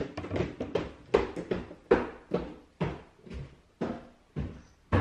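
A steady run of knocks and thuds, about two a second.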